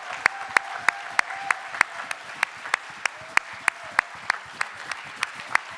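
Audience applauding, with one set of loud, evenly spaced claps, about three a second, standing out above the general clapping.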